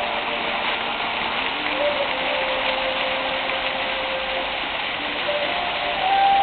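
Fountain jets splashing into the basin, a steady rushing patter of falling water. Under it runs a quieter melody of held notes that step up and down in pitch, from the musical fountain's music.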